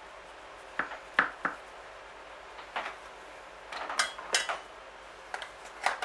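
Kitchen knife knocking against a chopping board and clinking on kitchenware: a few sharp, separate knocks, with the loudest about a second in and a cluster around four seconds in.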